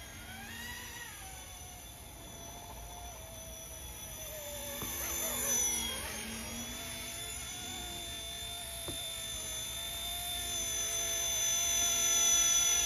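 Small electric RC scale helicopter in flight, the RC ERA C189 MD500: a steady high motor and rotor whine. About halfway through its pitch dips and comes back up as it swells louder, and it grows louder again near the end.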